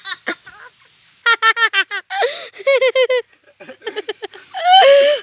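High-pitched laughter in several rapid bouts of short 'ha-ha' pulses, the longest and loudest bout near the end.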